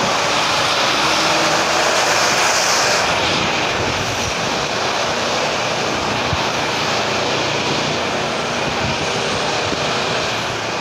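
Steady street traffic noise: the running engines of passing and waiting vehicles, swelling a little about two seconds in and easing off slightly later.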